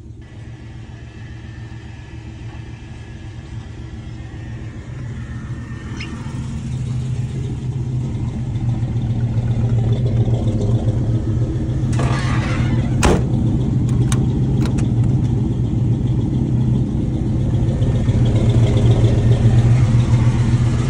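Box Chevy's engine idling steadily, growing louder as the listener moves around the outside of the car. A sharp knock sounds about thirteen seconds in.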